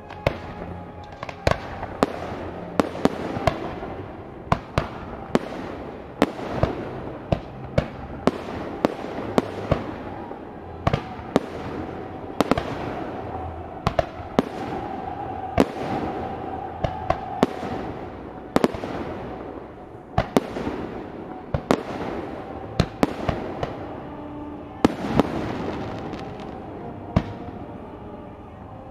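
Aerial firework shells bursting one after another, dozens of sharp bangs a second or so apart, over the hiss and crackle of the display. Music plays underneath.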